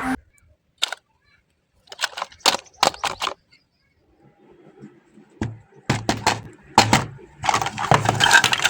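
A string of sharp clicks and knocks, sparse at first, then coming thicker and louder into a dense clatter near the end.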